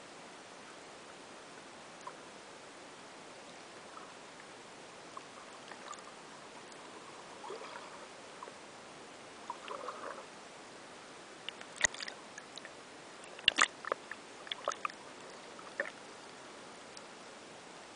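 Underwater sound picked up by a submerged camera: a steady hiss with scattered faint clicks and crackles that grow busier in the second half, and two sharper knocks, about twelve and thirteen and a half seconds in.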